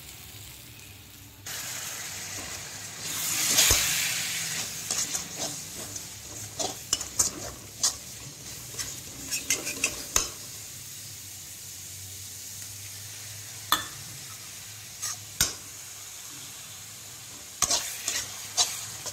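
Spice masala sizzling in a hot metal kadhai. A sudden rush of sizzling comes about a second and a half in, as a splash of water hits the pan, and is loudest a couple of seconds later. A slotted steel spatula then stirs and scrapes through it, clicking sharply against the pan again and again over a steady lower sizzle.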